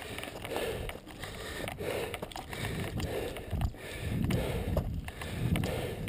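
Mountain bike rolling over a dirt trail: tyre noise and rattling, with the rear hub's freewheel ticking as it coasts. Low rumble grows stronger in the second half.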